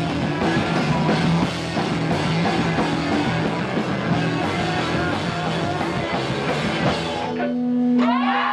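Loud punk rock music with a drum kit and guitar. About seven seconds in the full band drops out, leaving one held note that then bends in pitch.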